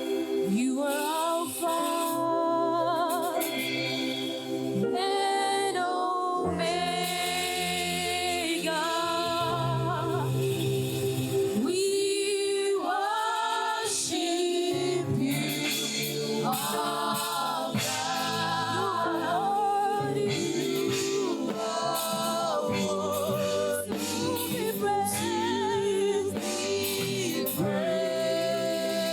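Church choir singing a slow gospel worship song, voices with vibrato over sustained keyboard chords and bass.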